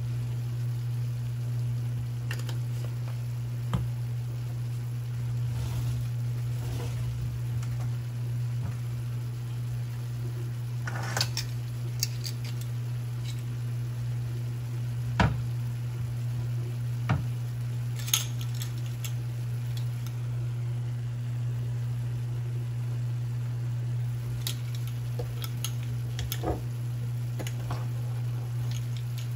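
Ground beef and chopped onion frying in a skillet: a faint sizzle with scattered sharp pops and crackles, a handful over the stretch, over a steady low hum.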